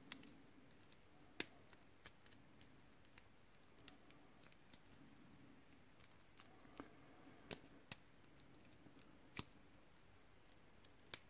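Small metal tool prying at a thick steel C-clip on the back of a lock cylinder: irregular sharp little clicks and scrapes, about a dozen, with pauses between them.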